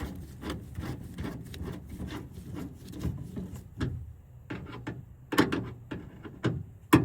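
Clicks, knocks and rubbing of handle parts being handled and fitted inside a 1999 Honda Odyssey's rear sliding door, with a sharper knock about five seconds in and another at the very end.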